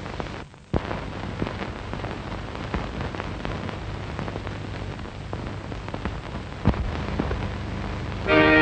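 Crackle and hiss of an old optical film soundtrack, with scattered clicks over a low hum. Near the end, music starts with held notes.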